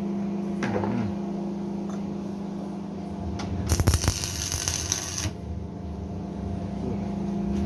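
A welding arc crackling and sputtering for under two seconds, about halfway through, as a short weld is laid. A steady electrical hum runs beneath it.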